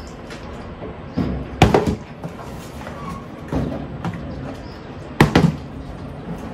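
Partly filled plastic bottle flipped and knocking down onto the table top, twice: once about one and a half seconds in and again about five seconds in, with softer thuds of the bottle being handled in between.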